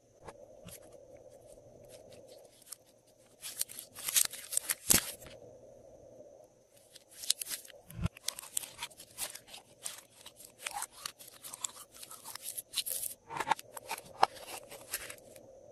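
Clear glossy slime squished and pressed by hand, making clusters of sticky crackling clicks, strongest about four seconds in and again from about seven seconds on.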